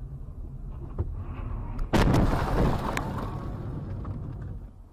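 Car collision: a sudden loud impact about two seconds in, with a crunching noise that dies away over about a second. Under it runs the steady low rumble of a car on the road.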